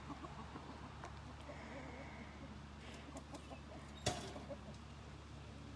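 Chickens clucking faintly, with one sharp knock about four seconds in.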